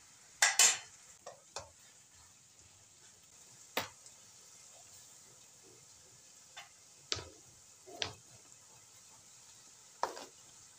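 A spatula knocking and scraping in a wok of frying chicken and tomato, then chopped vegetables tipped in off a cutting board, with a faint sizzle underneath. About eight short, sharp knocks, the loudest pair about half a second in.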